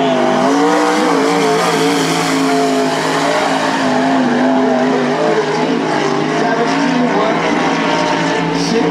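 Winged limited sprint car's engine running hard around a dirt oval, its pitch dipping and rising again several times as the throttle is lifted and reapplied through the turns.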